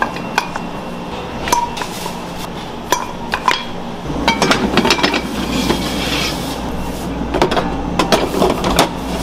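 Fluted metal bread molds and their sheet tray clinking and clattering as dough balls are pressed into them, with sharp metal-on-metal knocks. A steady low hum comes in about four seconds in.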